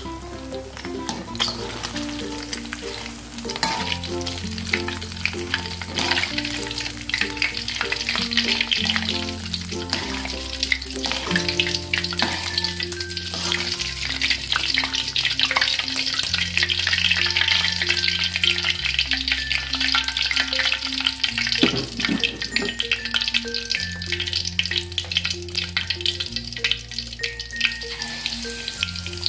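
Batter-coated shrimp deep-frying in hot oil in a wok: a dense crackling sizzle, strongest in the middle stretch. A background music track of low held notes plays under it.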